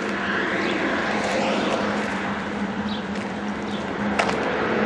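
A motor vehicle's engine running steadily with a low even hum under a broad rushing noise, with a sharp click about four seconds in.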